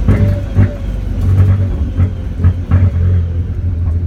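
Car engine running at steady revs, its drone broken several times at uneven intervals by short sharp stutters, the misfiring the title names.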